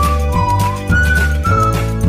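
Background music: a simple melody of held high notes over a steady bass and a regular beat.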